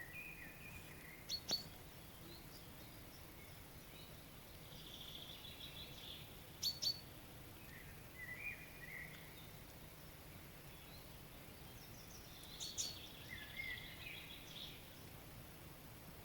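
Several wild birds singing and calling in the morning: sharp paired call notes three times, high trills and short warbling phrases over a faint steady background hiss.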